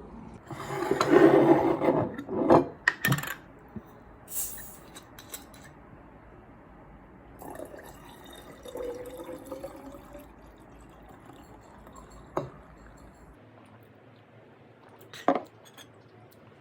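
Kitchen sounds: a loud rush of liquid near the start, then sharp clinks of glass and dishes. A faint, slightly rising tone in the middle fits liquid filling a glass.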